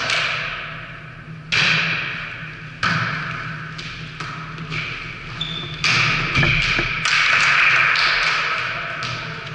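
Volleyball being struck during a rally in a large gym hall: several sharp smacks a second or more apart, each followed by a long echo.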